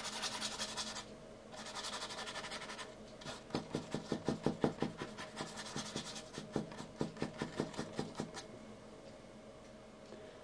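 Paintbrush scrubbing oil paint onto the painting: two longer rubbing strokes, then a run of short quick strokes, about four a second, which stop about eight seconds in.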